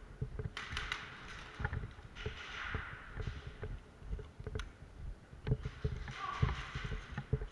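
Irregular low thumps and scraping, with a few sharp clicks and three short bursts of rustling hiss: an airsoft player moving about with gear.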